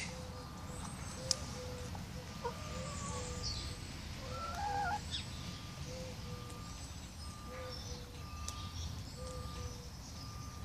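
Ex-battery rescue hens clucking softly, a steady run of short low clucks with one louder rising call midway. A single sharp click sounds about a second in.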